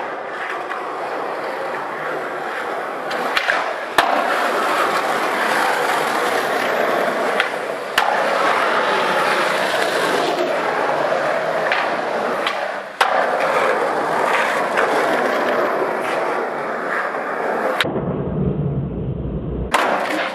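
Skateboard wheels rolling on concrete with several sharp clacks of the board. Near the end a heavy low rumble comes in as the skater comes down the stair set and bails.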